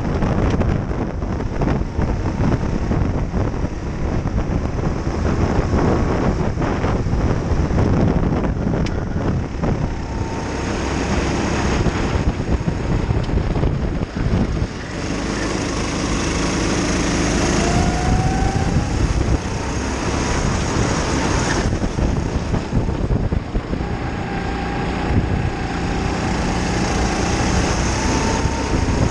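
Racing kart engine running hard at speed, heard from the kart itself, its pitch rising and falling as it accelerates out of corners and lifts into them, over rushing wind on the microphone.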